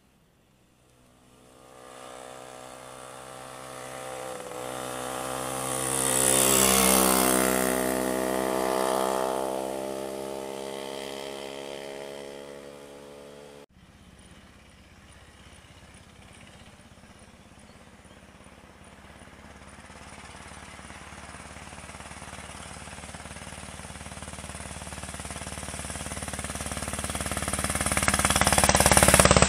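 Two vintage motorcycle engines pass in turn under load on a hillclimb. The first grows louder as it approaches, passes about seven seconds in, and fades away. The sound then breaks off and a second old motorcycle is heard approaching, loudest near the end.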